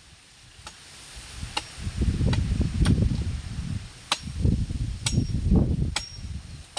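A series of sharp knocks or snaps, roughly one a second, a few with a brief high ring, over loud low rumbling and rustling. No chainsaw motor is running.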